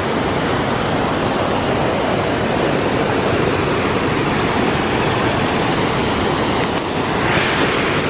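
Mountain stream rushing over boulders and rapids: a loud, steady wash of water noise that turns brighter and hissier near the end.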